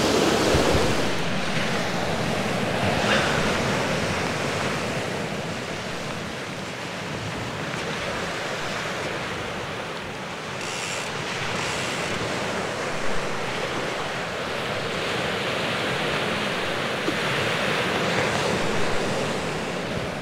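Sea surf washing onto the shore, a steady rushing that slowly swells and eases, with wind buffeting the microphone.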